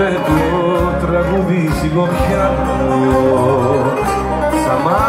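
A live band playing amplified Greek popular music through a PA: a male singer's voice over plucked strings, keyboards, drums and a steady bass line.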